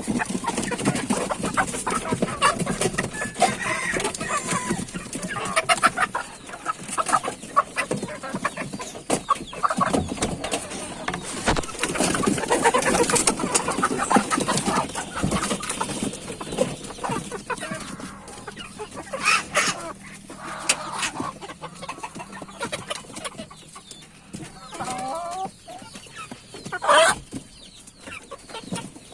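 A flock of native chickens clucking and calling, with many short calls overlapping and a louder single call near the end.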